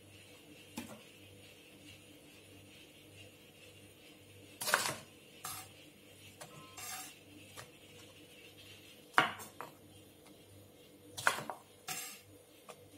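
A kitchen knife cutting bunched green and yellow beans in half on a wooden cutting board, and the cut beans set down in a glass bowl: several scattered sharp knocks and clatters, three of them clearly louder than the rest.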